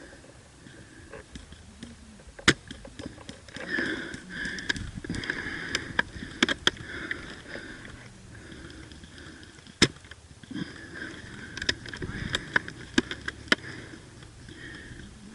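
About nine sharp, single clicks at irregular intervals, over faint rustling and distant voices.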